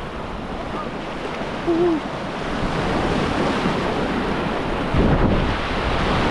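Rushing whitewater of a small river rapid around a kayak, growing louder after about three seconds, with a heavy splash-like surge hitting the microphone about five seconds in. A brief gliding tone sounds about two seconds in.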